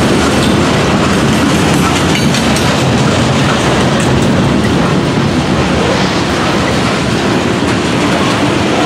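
Freight cars of a passing train rolling by close at hand: a steady, loud rumble and clatter of steel wheels on the rails as boxcars and covered hoppers go past.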